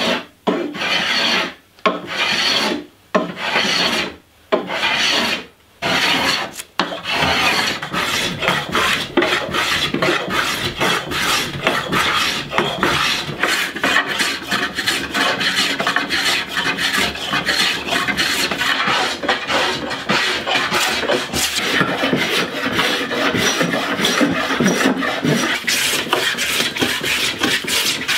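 Small hand plane shaving a laminated wooden canoe-paddle blade down to thickness. For the first several seconds there are separate strokes of about a second each with short pauses between them, then a fast, unbroken run of short strokes.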